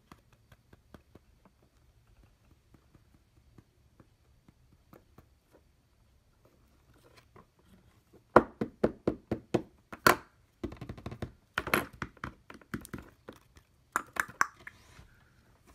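Small objects being handled on a workbench: faint scattered ticks at first, then from about halfway a run of quick sharp clicks and knocks, one louder knock, and short bursts of rustling.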